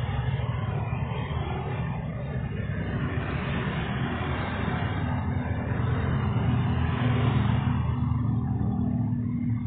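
Road traffic: a vehicle engine running with a steady rumble, swelling louder about seven seconds in.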